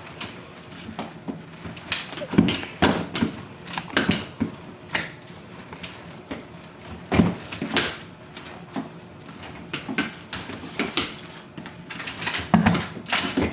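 Irregular clicks, knocks and rattles of a Baby Trend play yard's frame parts being handled and fitted together during assembly.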